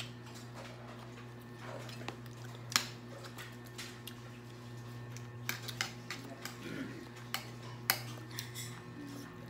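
Mealtime sounds: scattered clicks and clinks of cutlery and dishes while people eat, the loudest clink about three seconds in, over a steady low hum.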